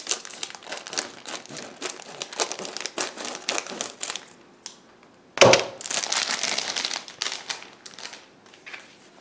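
Plastic bag crinkling as it is opened and the instruction manual is pulled from it. There is a dense crackle at first, then a sudden louder rustle about halfway through, fading out near the end.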